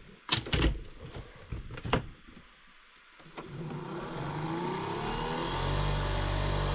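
A few sharp knocks and clicks as a portable espresso maker is handled, then its small electric pump motor starts up about three seconds in and runs with a steady whine that swells and holds.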